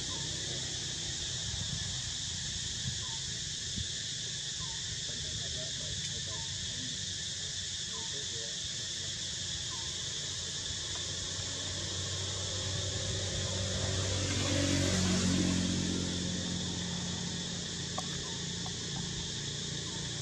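Steady high-pitched drone of insects in the trees, with a few faint short chirps in the first half. A louder low rumble swells up and fades away about three-quarters of the way through.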